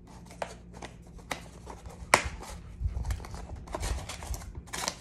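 A taped cardboard box being opened by hand: the flap and tape pulled apart in a series of scrapes, rustles and sharp snaps, the loudest crack a little after two seconds in.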